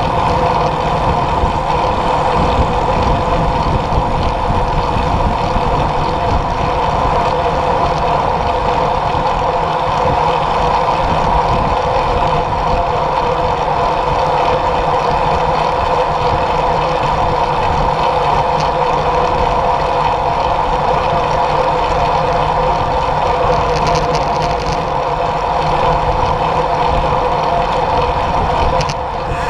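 Steady wind and road noise from a road bicycle riding at speed, picked up by a camera mounted on the bike, with a steady hum running through it.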